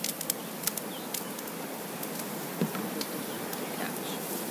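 Date palm sap boiling hard in a wide, shallow metal pan: a steady frothy bubbling hiss with scattered sharp pops and crackles.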